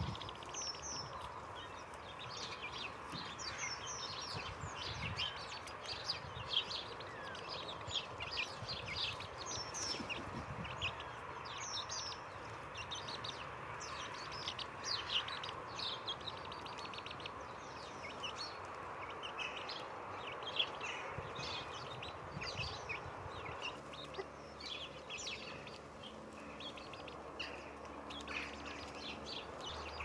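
Small garden songbirds chirping and calling, many short high calls scattered throughout, over a steady faint background noise.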